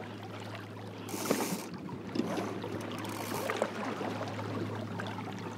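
Water lapping and splashing against the hull of a small plywood sailing dinghy under way, with two brief louder hissing splashes about one and three seconds in.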